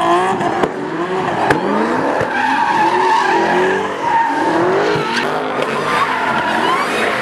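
Muscle cars doing donuts: engines revving up and down over the squeal and skid of spinning tyres, with a couple of sharp pops in the first two seconds.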